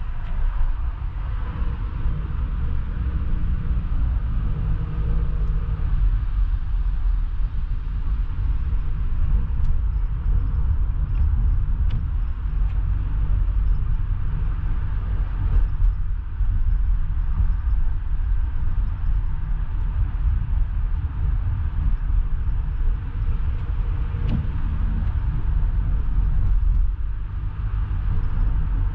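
Car engine and road noise heard from inside the cabin: a steady low rumble throughout.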